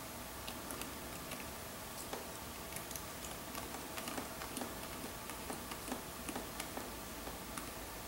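Faint, irregular light clicks and ticks of a precision screwdriver turning a small screw in a laptop's internals, with fingers handling the parts.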